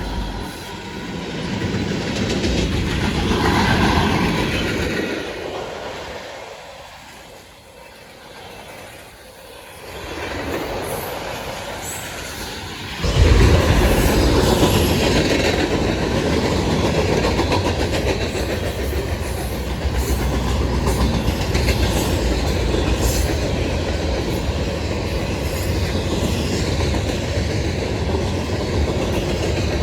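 Norfolk Southern freight train passing close by. After a quieter lull, the sound jumps suddenly about 13 seconds in as the train comes abreast, then holds a steady heavy rumble with the clickety-clack of wheels over rail joints as the cars roll past.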